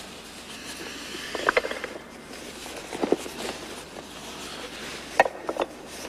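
Scattered knocks and clinks of hard objects being handled, a few short hits at a time with a brief ring, over a steady hiss.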